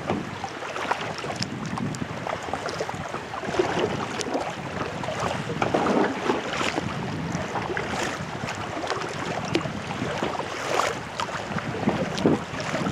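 Kayak paddling: the paddle blades dip and splash in the water at irregular intervals, with water lapping against the hull and some wind on the microphone.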